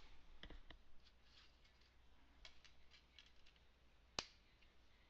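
Faint scattered clicks of a computer mouse and keyboard in use, with one sharper click about four seconds in, over near-silent room tone.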